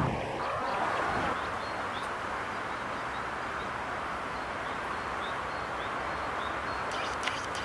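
A small bird chirping over and over, short high notes about every half second, against a steady rushing background; near the end comes a quick cluster of sharper, clicking calls.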